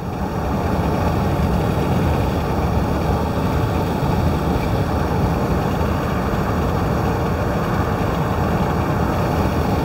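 Steady engine and road rumble inside a moving car's cabin.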